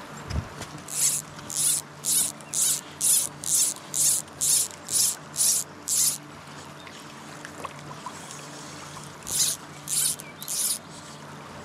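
Fly line pulled by hand in quick arm-length strips, each a short zipping hiss, about two a second: eleven in a row, then three more a few seconds later.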